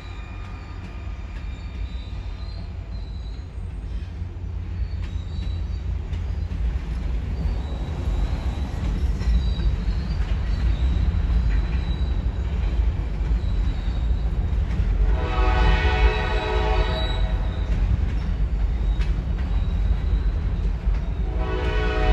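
Freight cars rolling past with a steady low rumble that grows louder. A train horn sounds twice, one blast of about two and a half seconds past the middle and another starting near the end.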